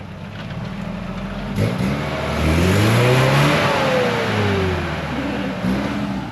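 Off-road 4x4's engine revving hard as it works over a rock on a muddy climb. It rises about one and a half seconds in, peaks, then drops back to a lower run, with a loud hiss at the peak.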